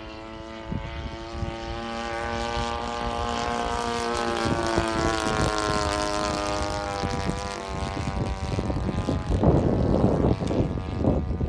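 Radio-controlled Hangar 9 Corsair model airplane flying by, its motor and propeller giving a steady droning note that grows louder and drops slightly in pitch about halfway through as it passes. Rough gusts of noise come in near the end.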